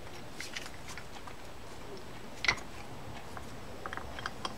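Small clicks and taps of reel parts being handled as the drag pressure plate is turned on the spool of a Shimano Triton TTS 30 lever-drag reel to seat it over its pin, with one sharper click about two and a half seconds in.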